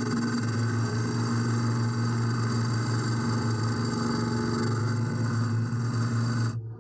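Wood lathe spinning a segmented wooden vase while a long boring-bar hollowing tool cuts inside it: a steady motor hum under the rough scraping of the cut. Near the end the higher sound stops abruptly and only the low hum goes on.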